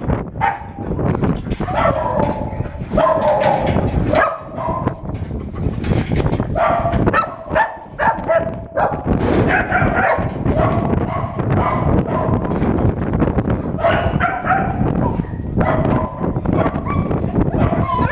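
Several kennel dogs barking and yipping in repeated bouts, close up. Underneath, a dog jumping up against the wire-mesh kennel gate makes it rattle and clatter.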